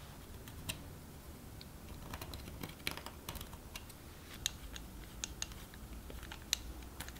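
Faint, scattered light clicks and taps of small metal hardware being handled: a steel leg mounting plate, its screws and a drill chuck.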